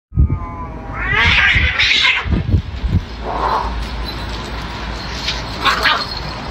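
Two cats fighting: a drawn-out yowl that rises into a loud, harsh screech in the first two seconds, then shorter cries a few seconds later as they grapple.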